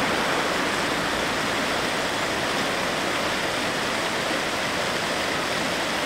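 Steady rushing of a shallow, rocky river running over small rapids.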